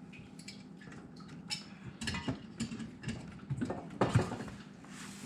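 Irregular small clicks, taps and knocks of hands and tools working at a water shutoff valve that will not close all the way, with the loudest knock about four seconds in.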